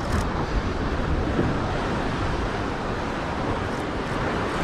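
Steady wind buffeting the microphone over the wash of ocean surf.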